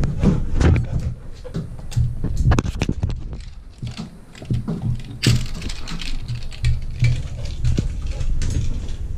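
A terrier scrambling after a ball on a hard floor: irregular clicking and pattering of claws with low thumps, easing off for a moment near the middle before picking up again.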